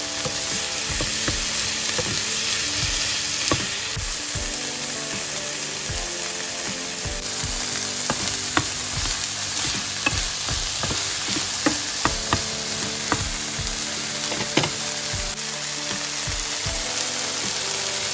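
Chopped tomatoes frying in hot olive oil in a non-stick pan, a steady sizzle, with scattered taps and scrapes of a wooden spatula stirring them.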